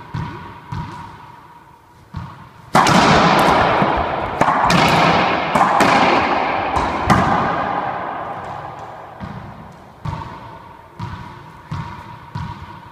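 Racquetball being played in an enclosed court. The ball is bounced on the floor a few times, then a sharp hit about three seconds in starts a rally of ball strikes off racquets and walls, each echoing in the court, which ends about seven seconds in. Near the end the ball is bounced on the floor again, about once every second, before the next serve.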